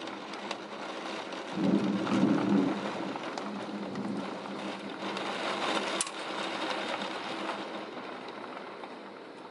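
Heavy thunderstorm rain pouring steadily. A low rumble of thunder swells up about one and a half seconds in, lasts about a second and a half, then eases back under the rain. A single sharp tick comes about six seconds in.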